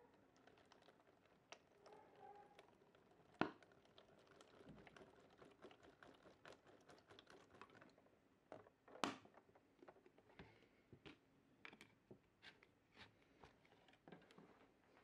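Faint, irregular clicking and ticking of small metal can-opener parts knocking against each other and the walls of a plastic bottle as it is turned by hand. Two sharper knocks come about three and a half and nine seconds in.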